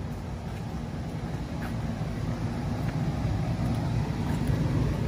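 A steady low mechanical hum from a running motor or engine, getting slightly louder as it goes on.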